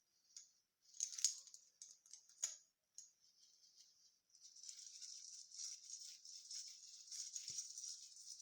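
Fir branches rustling softly, the needles brushing and crackling. There are a few sharper crackles in the first three seconds, then a steadier, denser rustling from about halfway through.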